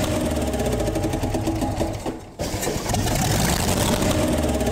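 7-liter truck engine being cranked and firing on its first start, with a fast, rough, rhythmic clatter. It cuts out briefly a little past two seconds in, then starts again.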